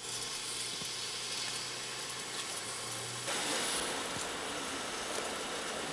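Heavy rain falling steadily, an even hiss that grows louder about three seconds in.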